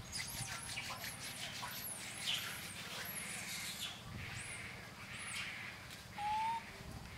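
Repeated short, high-pitched chirping calls from animals, each rising and then falling in pitch, several a second at times. About six seconds in there is one brief, lower whistled note that rises slightly.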